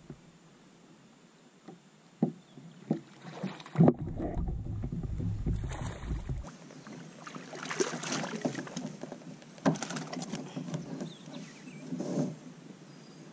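Knocks and bumps on a plastic fishing kayak with water splashing around it: a few sharp knocks, the loudest about four seconds in, then a longer run of splashing and rustling handling noise.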